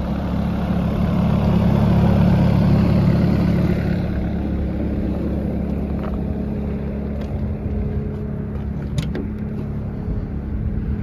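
Yanmar diesel engine of a Doosan DX85R-3 mini excavator idling steadily. It swells a little for a few seconds about a second in, and there are a few faint clicks later on.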